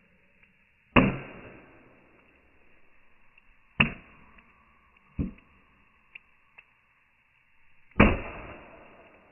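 A machete striking the shell of a dry brown coconut: four sharp knocks, the first and last the loudest, each dying away over about a second.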